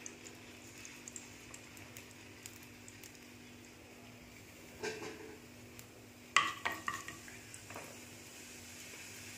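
Mustard seeds and urad dal frying in a little oil in a nonstick pan for a tempering: a faint sizzle with scattered small crackles. A few louder clinks of a utensil against the pan come about five seconds in and again between six and seven seconds in, as the dal is stirred.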